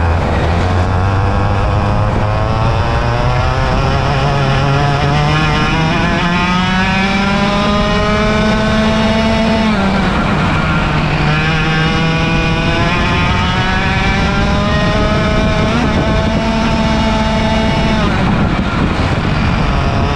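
100cc two-stroke racing kart engine at full throttle, its pitch climbing steadily, dropping sharply about halfway through as the throttle is lifted for a corner, then climbing again, with another drop near the end.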